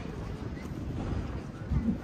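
Wind rumbling on the microphone, with a stronger gust near the end.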